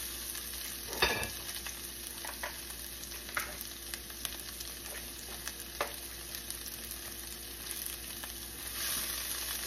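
Chopped cabbage sizzling steadily as it fries in oil in a pan, with a few light knocks, the loudest about a second in.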